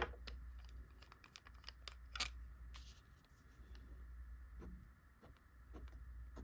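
Fountain pen nib writing on paper: faint, scattered scratches and small ticks, one a little louder about two seconds in.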